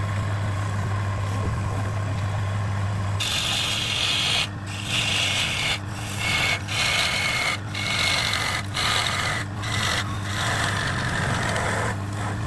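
A power tool's motor running with a steady hum. About three seconds in it starts working wood, a loud hissing noise broken by short gaps roughly once a second, as in repeated passes over the workpiece.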